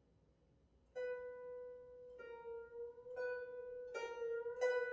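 Solo guzheng (Chinese zither) plucked. After a near-silent pause, one note is plucked about a second in, then repeated at about the same pitch, each note ringing on. The plucks come louder and closer together toward the end.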